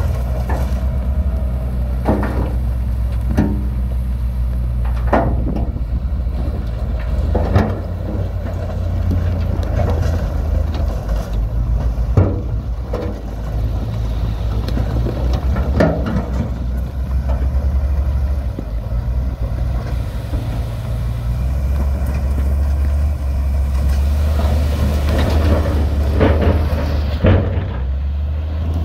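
Heavy diesel construction machinery running steadily with a deep drone that changes pitch about ten seconds in and again a little past twenty. Sharp knocks and clanks come at irregular intervals throughout.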